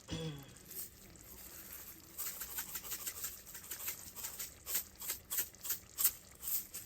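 A spice jar of dried minced onion shaken over the pot: a quick run of dry rattling shakes, about four a second, starting about two seconds in.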